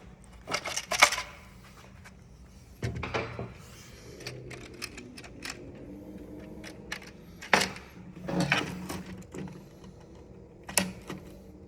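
Plastic parts of an opened printing calculator being handled: scattered small clicks and light knocks, with a few louder clatters.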